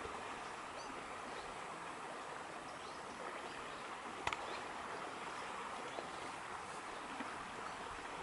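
Steady rush of a flowing stream, with one sharp click about four seconds in.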